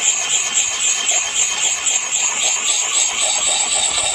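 Round axe puck sharpening stone, its finer side rubbed in small circles over an oiled steel axe blade: a steady, gritty scraping of stone on steel.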